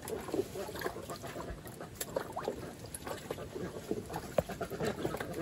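A duckling bathing in a shallow plastic tub of water, with many quick, irregular splashes and sloshes as it dips and shakes.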